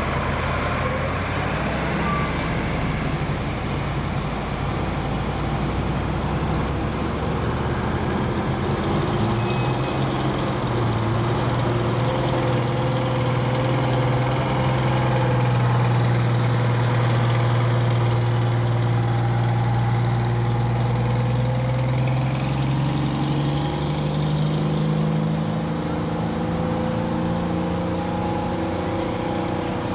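Fire truck engines running as the trucks pass slowly one after another; the nearest one is loudest about halfway through as it goes by, and a following truck's engine rises in pitch near the end as it speeds up.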